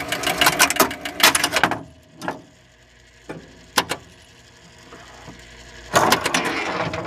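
1976 Gottlieb Ship Ahoy electromechanical pinball machine running its game-start reset. There is a fast run of relay and stepper-unit clacks, then a few single clacks, and another run of clacking about six seconds in, over a low steady hum.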